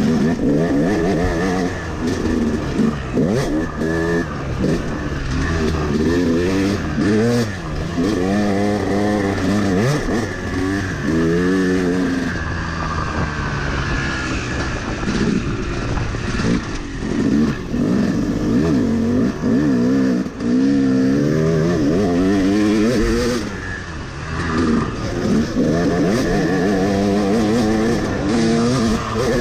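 Yamaha YZ250 two-stroke dirt bike engine, heard close up while ridden, its revs rising and falling over and over as the throttle is opened and closed.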